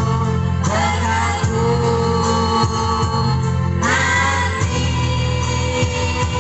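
School choir singing with instrumental accompaniment over steady held chords. Sung phrases come in about a second in and again about four seconds in.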